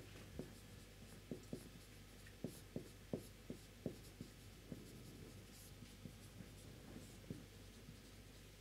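Marker pen writing on a whiteboard: faint, irregular short strokes and taps as letters are written.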